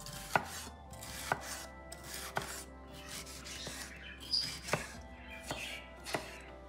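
Kitchen knife chopping on a cutting board in slow single strokes, about one a second, over soft background music.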